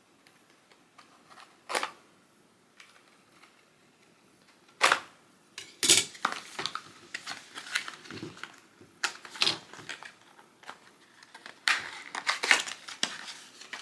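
Objects being handled by hand: scattered sharp clicks and knocks, becoming busier with rapid clicking and rustling from about six seconds in, typical of a tripod and its packaging being picked up and opened.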